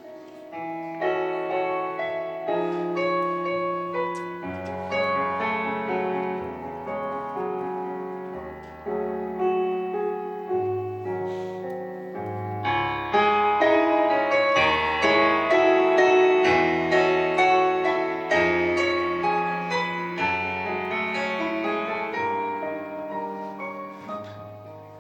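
Piano playing a slow instrumental introduction to a hymn, chords over a moving bass line, growing fuller and louder about halfway through.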